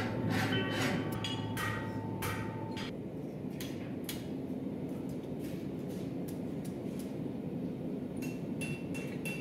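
Blacksmith's hand hammer striking hot steel on an anvil while forging a spoon handle's curled tail: a quick run of sharp, ringing blows over the first few seconds, a few scattered strikes and clinks in the middle, and a short cluster of ringing strikes near the end.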